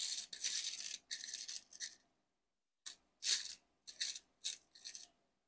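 Fingers rummaging through amazonite stone chip beads in a clear plastic box, the chips clattering against each other and the box. A longer stretch of rattling fills the first two seconds, then comes a run of five short rattles.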